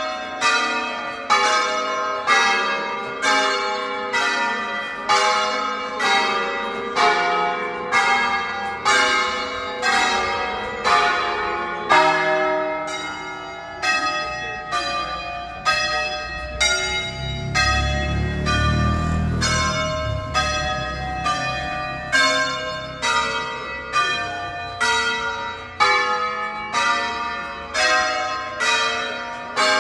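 A peal of large church bells in E-flat, nine of them rung by a team in the Veronese concerto style, striking in quick succession to play a melodic sequence. Each stroke rings on and overlaps the next.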